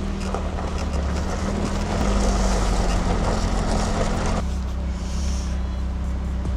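BMW E30 M3's four-cylinder engine running steadily, warming up, with a louder, rougher stretch in the middle.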